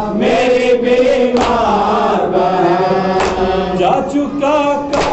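Men's voices singing a nauha, an Urdu Shia mourning lament, as a melodic refrain sung without instruments. About every two seconds a sharp slap cuts through, like hands striking chests in matam.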